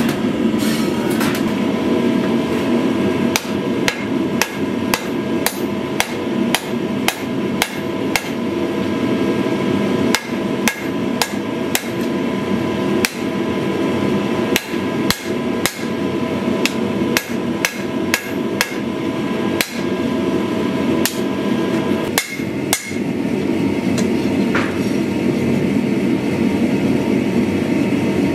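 Hand-hammer blows on steel at the anvil while forging a knife blade, irregular at about one to two a second, stopping about 23 seconds in. A steady rushing noise runs underneath.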